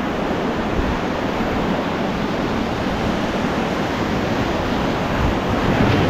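Steady rushing roar of whitewater river rapids around an inflatable raft, growing a little louder near the end as the raft enters rougher water.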